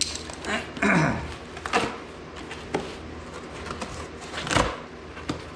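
Stiff kraft paper wrapping rustling, crinkling and tearing in irregular handfuls as a package is unwrapped, with a heavier thump about four and a half seconds in.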